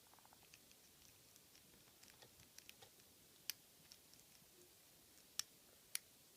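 Faint clicking and scratching of a short hook pick working the pins of an ABUS 80TI/40 padlock, with three sharper clicks about three and a half, five and a half and six seconds in.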